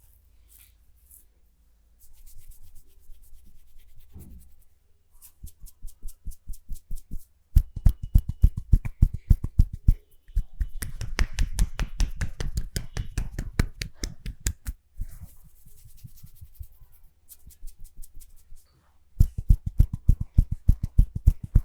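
Hands rubbing the skin at first, then rapid rhythmic slaps and taps of a percussive hand massage, about five strikes a second, in several runs of a few seconds each.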